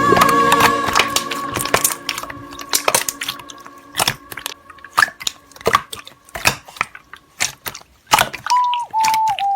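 Slime being pressed and squished by hand, giving sharp, irregular crackling clicks and pops.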